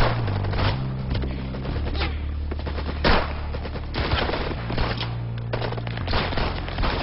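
Gunfire in a film shootout: repeated gunshots, some in quick succession, the loudest about three seconds in, over a low droning music score.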